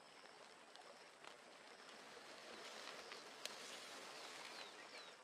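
Faint outdoor ambience: a soft hiss with a few small clicks, and two short falling chirps near the end.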